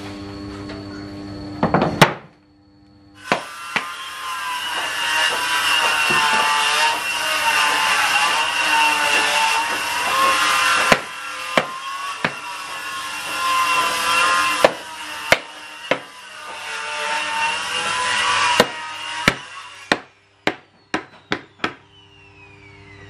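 Hammer knocking small wooden blocks into a wooden door frame, single blows scattered through, with a quick run of blows near the end. A power tool runs under it for most of the time, its pitch wavering under load, then is switched off and winds down with a falling whine near the end.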